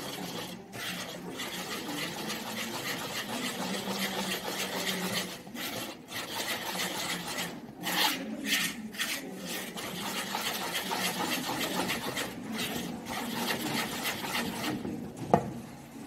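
Hand whisk stirring flour and cocoa into cake batter in a plastic mixing bowl: a steady scraping and rubbing, with a few short pauses and a run of sharper strokes about eight seconds in.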